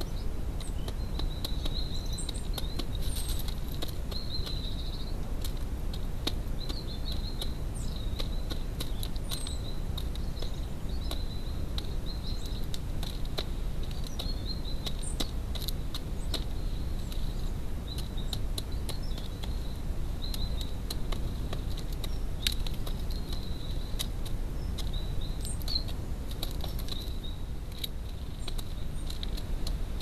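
A wood pigeon pecking seed from a feeder dish makes scattered sharp clicks over a steady low rumble. Faint, brief bird chirps sound now and then in the background.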